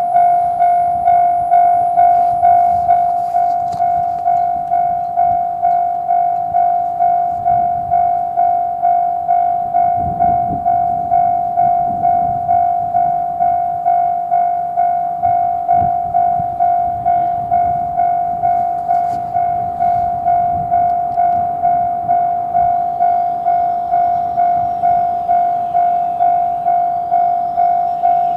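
Japanese railway level-crossing warning bell ringing "kan-kan" at about two strokes a second, one clanging tone repeated evenly. A train rumbles past beneath it from about eight seconds in until past twenty seconds.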